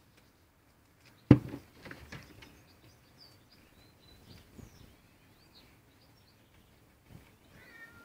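A sharp knock about a second in, then soft crackling and rustling as young rabbits shuffle in hay, with wild birds chirping in the background.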